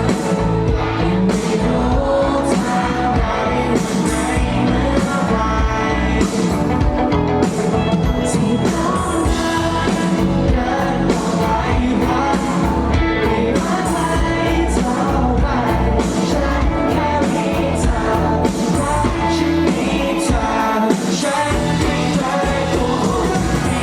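Live pop-rock song with a male lead vocal singing over a full band with a steady beat.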